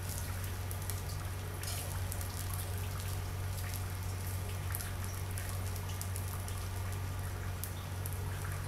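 Stir-fried noodles and vegetables sizzling in a hot pan as a slotted spatula tosses and scrapes through them, with many small crackles and ticks throughout. A steady low hum runs underneath.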